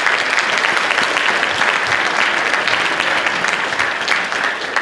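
Audience applauding: many people clapping together in a dense, steady stretch of applause.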